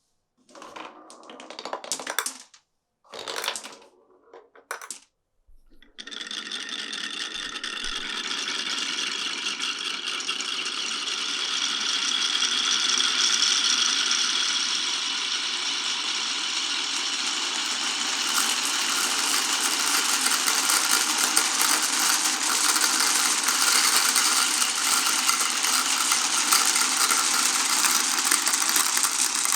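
Glass marbles rolling and clattering along a marble run track: a few short rattles in the first five seconds, then from about six seconds in a dense, continuous clatter of many marbles running together.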